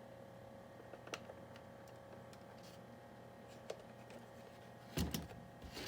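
Faint plastic clicks as small door and tailgate handles are pressed into the hard plastic body of an RC scale truck, with a louder knock and handling noise about five seconds in.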